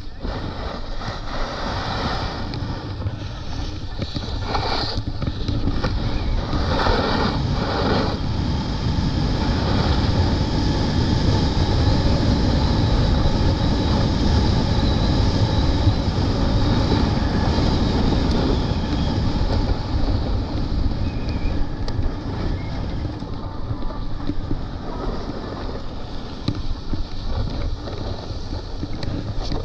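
Snowboard sliding down a snow slope: a continuous rumbling scrape of the board on the snow, with a few harsher scrapes in the first eight seconds and the noise loudest in the middle stretch.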